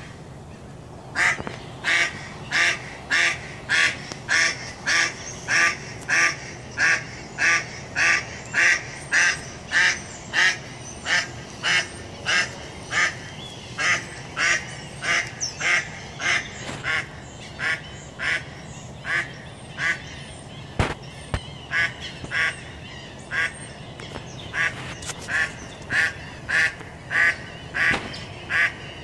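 A duck quacking over and over in a steady run of about two quacks a second, with a short break about twenty seconds in.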